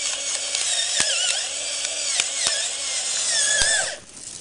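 Electric pepper mill grinding black peppercorns: a motor whine that wavers in pitch over a grinding hiss, with scattered sharp clicks, cutting off suddenly about four seconds in.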